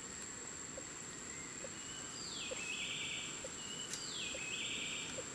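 Rainforest ambience: a steady high insect whine, with an animal call repeating about every two seconds, a falling note followed by a short buzz. Faint short pips sound underneath.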